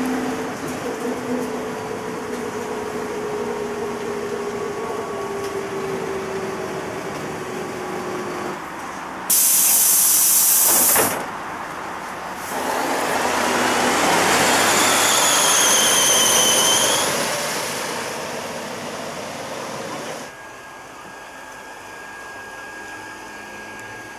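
City bus (LiAZ-5256) heard from inside: the engine note falls slowly as the bus slows. About nine seconds in there is a loud short hiss of compressed air, and a few seconds later a longer hiss of air that swells and fades. Near the end it settles to a quieter steady hum.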